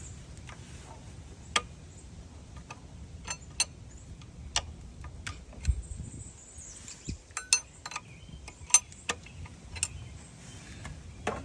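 Scattered sharp clicks and light taps, about a dozen at irregular intervals, over a low steady background rumble.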